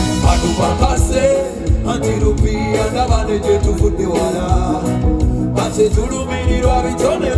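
Band music with a singing voice over a steady bass-and-drum beat.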